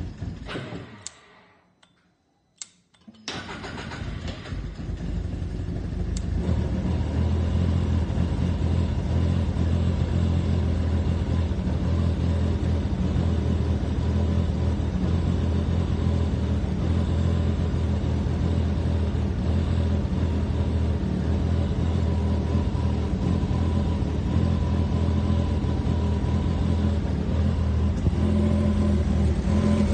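A vehicle engine goes quiet, a few sharp clicks follow, and then it is started about three seconds in. It builds up over a few seconds and settles into a steady idle.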